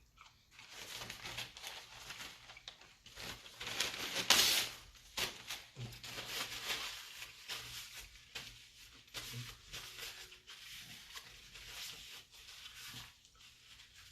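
A person eating KFC fried chicken close to the microphone: irregular chewing, tearing and crinkling sounds, loudest about four seconds in.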